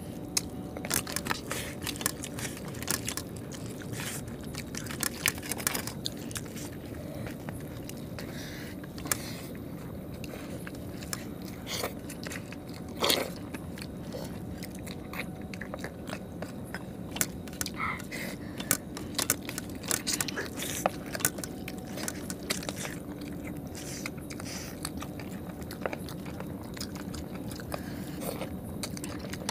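People eating chicken curry and rice by hand: chewing and crunching, with frequent small clicks and scrapes of fingers on steel plates, over a steady low background hum.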